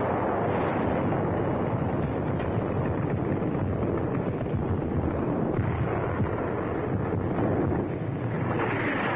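Artillery fire and shell bursts in a dense, unbroken rumble with small sharp pops, heard on an old film soundtrack.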